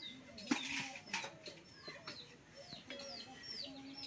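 Birds calling: short high chirps sliding down in pitch, about two a second, over short low cooing notes. Two light clicks come in the first second or so.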